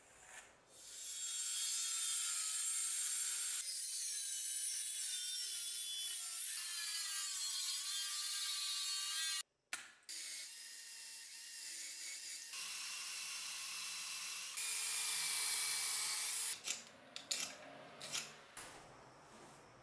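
Metabo cordless drill boring into an ash wood handle blank, its motor whine rising and falling in pitch under load, stopping and starting a few times. Near the end, a handful of separate rasp strokes on the wood.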